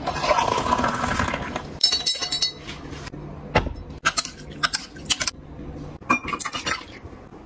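Boiling water poured from a kettle into a glass tumbler for nearly two seconds. It is followed by several bursts of a metal spoon clinking against the glass as it breaks up set ice jelly, with a single dull knock in between.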